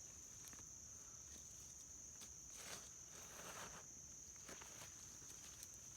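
Faint, steady high-pitched trilling of insects, with a few soft scrapes of garden soil being dug, the clearest about two and a half and three and a half seconds in.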